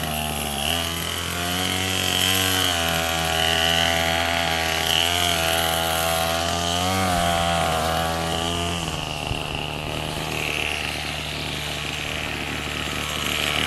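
Gas string trimmer (whipper snipper) engine running, revving up and down several times, then running more steadily from about nine seconds in.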